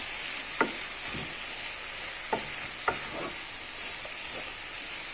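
Basmati rice and vegetables sizzling in hot oil in a pot as the rice is toasted before the water goes in, stirred with a wooden spatula. A steady frying sizzle runs throughout, with a few short knocks of the spatula against the pot.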